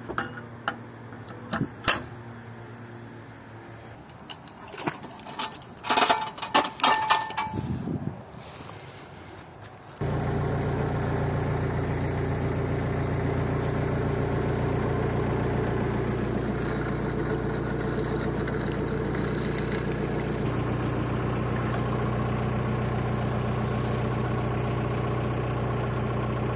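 Metal clinks and knocks for the first ten seconds or so as mooring gear is handled, then a narrowboat's diesel engine running steadily under way, its note shifting slightly a couple of times.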